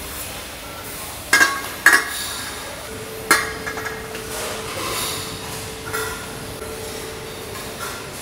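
Stainless steel bottle bodies clanking and clinking as they are handled and set down on a worktable. Sharp clanks come about a second and a half and two seconds in, then another after three seconds, with lighter knocks later, over a steady machine hum.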